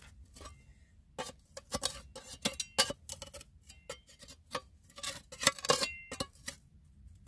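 Loose rock clicking, clinking and scraping in quick irregular knocks as broken rock is worked out of a crack in the bedrock, starting about a second in.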